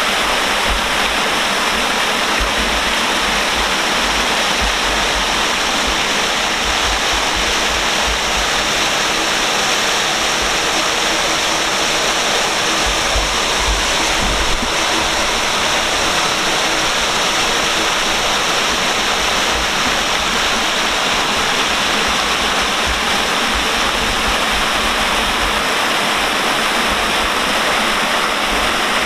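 Water spilling from a flume bridge in a wide curtain and falling into a canal, a steady rushing splash.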